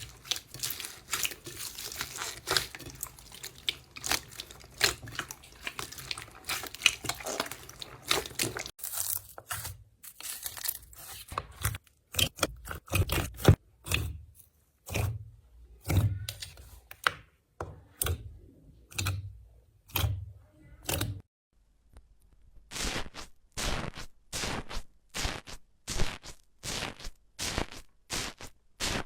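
Slime being worked by hand, making crisp crackling and crunching pops. Dense crackling at first, then separate presses with a low thud each, and a quick, even run of clicky pops in the last few seconds.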